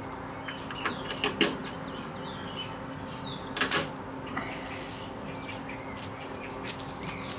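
A few light clicks and taps of a plastic-and-fibreglass BMS circuit board being set down and pressed onto the brass terminal posts of a home-built 18650 battery pack, with one louder double knock a little past halfway.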